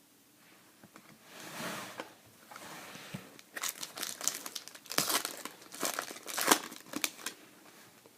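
Foil trading-card pack wrapper being crinkled and torn open, with a soft rustle a second or two in, then a burst of sharp crackling over the middle and latter part.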